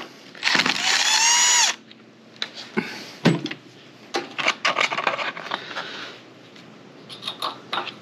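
Cordless drill with a socket bit spinning a nut off the air-filter housing of a small 79cc engine: a rising whine about a second long, starting half a second in. It is followed by scattered clicks and knocks as the plastic air-filter housing is handled and pulled off.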